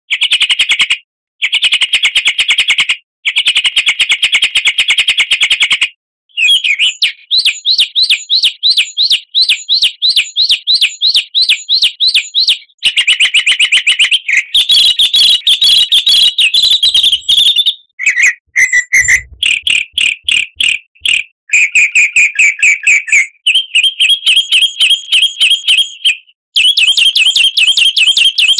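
Songbird song from a recorded bird-song lure track: fast trilled phrases of rapidly repeated chirps, each a few seconds long. The pattern changes from one phrase to the next, with short breaks between them.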